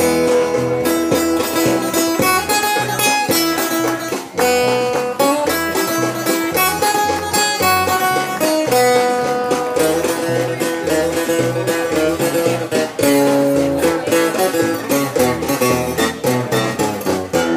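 Live country band playing an instrumental break over a PA: amplified guitars picking out the melody in held notes over a steady bass line.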